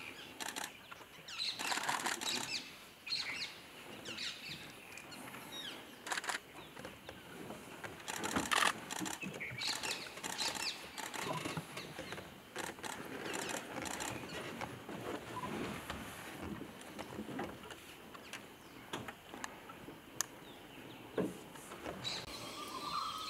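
Outdoor forest ambience with scattered short bird chirps and calls throughout, broken by a few sharp clicks, the loudest about eight or nine seconds in.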